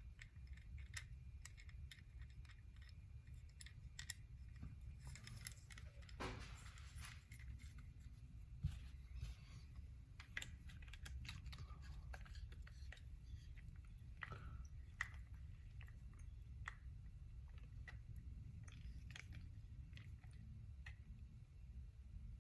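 Faint, scattered small clicks and scrapes of a screwdriver and small metal parts as a spring-loaded screw is driven into an Andis Master clipper's housing, over a low steady hum.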